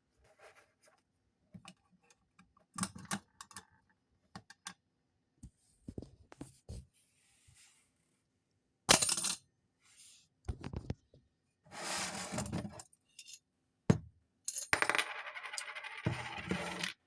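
Vintage rocket-ship coin-shooting bank being worked, with scattered clicks of its mechanism and a sharp metallic clack about nine seconds in. Coins clatter and rattle, briefly around twelve seconds and then longer near the end.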